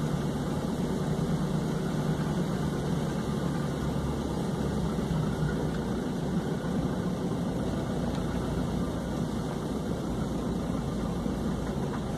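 Loaded truck's diesel engine running at low road speed, heard from inside the cab as a steady, deep drone.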